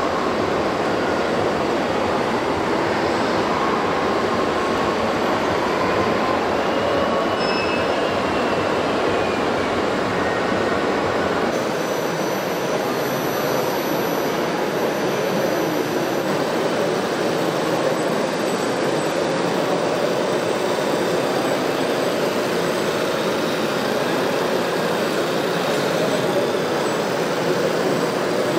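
Radio-controlled model vehicles running, a steady mechanical noise of small motors and gearing, with a faint whine rising and falling about a third of the way through. The sound changes character about twelve seconds in, losing its lowest rumble.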